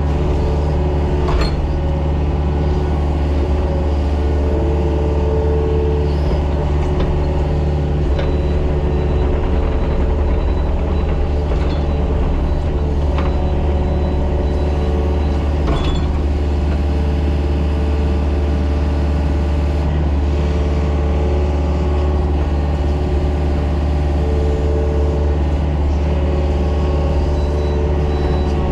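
Mini excavator's diesel engine running steadily under working load, with a few faint knocks as the machine works the ground.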